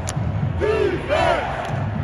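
Stadium crowd of football fans yelling together, many voices swelling up and falling in pitch in repeated shouts over a steady crowd rumble.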